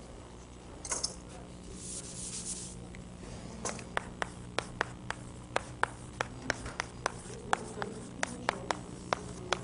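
Light sharp taps, about three a second, for the second half, after a brief rustling scrape near the start, over a steady low hum.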